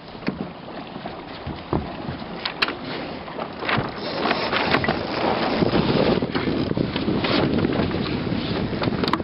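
Wind buffeting the microphone aboard a small sailboat under way, with scattered clicks and knocks from lines and deck fittings as the crew works the sheets. The rushing noise grows louder about four seconds in.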